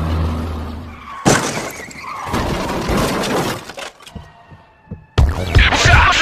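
A sudden crash about a second in, with a noisy clatter that trails off over a couple of seconds. Loud music starts abruptly near the end.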